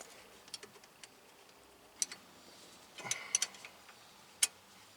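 A few scattered sharp clicks from a ratchet wrench snugging a small 10 mm bolt, with a short run of clicks about three seconds in.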